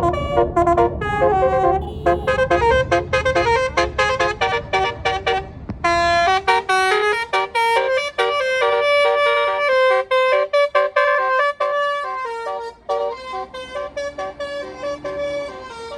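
Tour bus's Basuri multi-trumpet musical horn (the 'telolet' horn) playing a fast melody of short, rapidly changing notes. The bus engine rumbles under it for the first six seconds or so, then fades while the horn tune carries on and grows quieter near the end.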